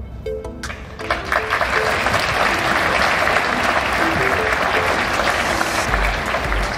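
Audience applauding, swelling about a second in and easing off near the end, over soft background music with a slow melody.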